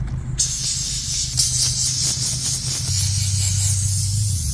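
Air hissing steadily out of the valve stem of a Mickey Thompson Baja Boss all-terrain tyre as it is aired down for off-road driving. The hiss starts about half a second in and gets louder after about a second and a half.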